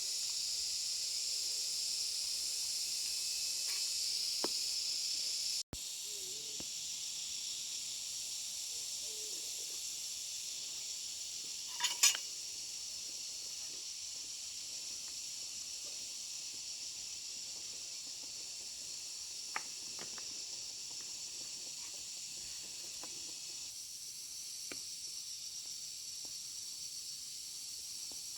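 Steady high-pitched insect chorus, with a few faint ticks and one sharper knock about 12 seconds in.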